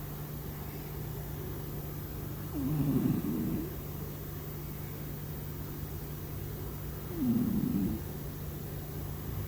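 Scottish Fold kitten snoring in its sleep: two snores about four seconds apart, each lasting about a second, over a steady low hum.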